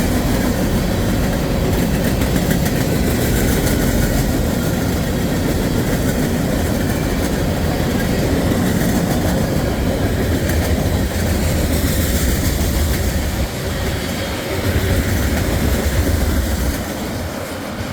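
CSX freight train rolling past, a steady rumble and clatter of steel wheels on the rails, easing a little near the end.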